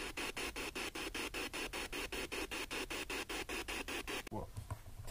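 Ghost-hunting spirit box sweeping through radio stations: choppy static pulsing about five times a second. It cuts off about four seconds in.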